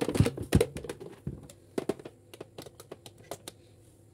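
Handling knocks and clicks as an air fryer's power plug is pushed into a wall socket: two heavier knocks within the first second, then a run of lighter, irregular clicks that stop shortly before the end.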